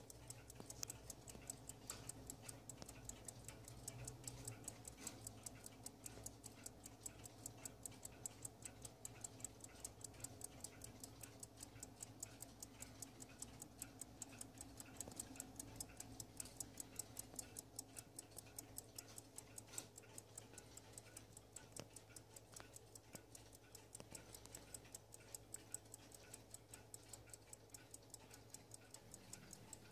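Howard Miller Worthington mantel clock's mechanical balance-wheel movement ticking rapidly and evenly, a light watch-like tick.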